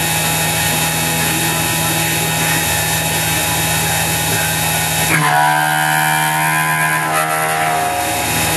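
CNC-converted X2 mini mill cutting 6061 aluminium with an end mill: a steady hum under dense cutting noise. About five seconds in the cutting noise drops away and a whine takes over, sliding down in pitch and then holding, as the cut changes.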